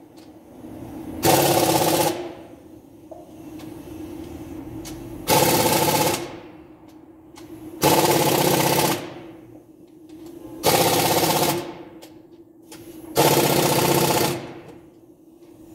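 Impact wrench run in short bursts of about a second each, five times, a few seconds apart: a rapid hammering rattle on engine bolts, with a low steady hum between the bursts.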